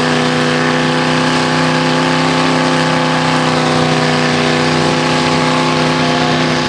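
Mud truck's engine held at high, steady revs while its spinning tires churn through a deep mud pit, slinging mud and water.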